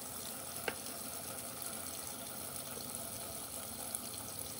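Kitchen tap running steadily into a stainless-steel sink, with a single sharp click under a second in.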